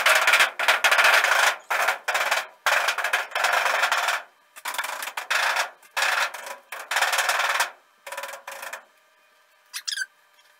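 Overhead sheet-metal air ducts being banged and rubbed by hand in a run of short noisy bursts, each under a second, to shake loose dust and debris inside before vacuuming.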